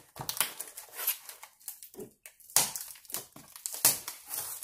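Fingers scratching, picking and tearing at a tightly taped cardboard shipping box: irregular scrapes and crackles of cardboard and packing tape, with two sharper, louder scrapes, one a little past halfway and one near the end.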